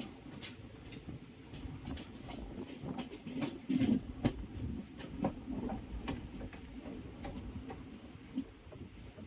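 Passenger train running on the track, heard from on board: a steady low rumble with irregular clicks and rattles, loudest about four seconds in.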